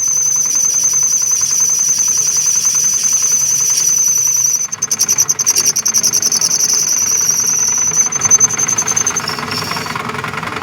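Electric grinder running against rusted steel gear teeth: a loud high steady whine over a fast rattle. The whine drops away a little before the end.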